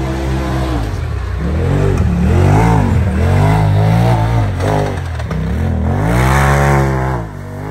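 Side-by-side UTV engine revving hard and backing off again and again during a hill climb run, its pitch rising and falling about five times, with the longest, loudest pulls near the middle and near the end.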